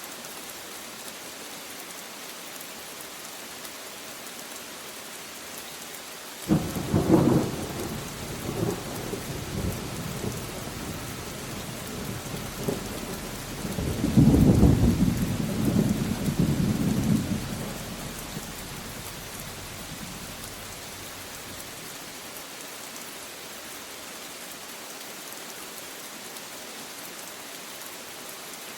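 Steady rain falling, with a thunderclap that breaks suddenly about a quarter of the way in and rolls on in a long rumble, swelling again around the middle before dying away.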